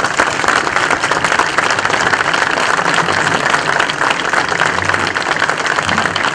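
An audience clapping in sustained, steady applause.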